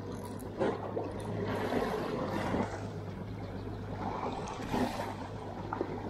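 Water sloshing and splashing against the hull of a drifting boat, in irregular swells, over a steady low hum.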